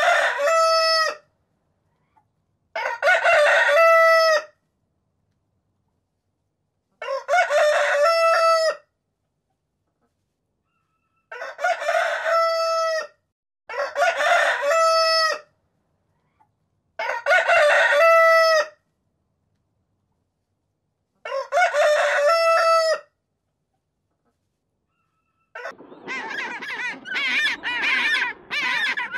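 A rooster crowing seven times, roughly every three to four seconds; each crow ends in a long held note. About four seconds before the end, a penguin starts a rapid run of repeated braying calls.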